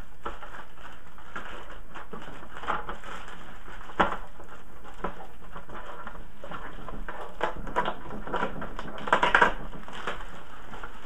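Hands pulling packing tape and plastic from inside an HP Photosmart D110a inkjet printer: crinkling and rustling with scattered clicks of the printer's plastic parts. There is a sharp click about four seconds in and a run of crackles near the end.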